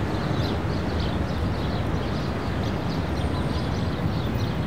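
Steady outdoor ambience: an even low rumbling noise with short high chirps repeating two or three times a second.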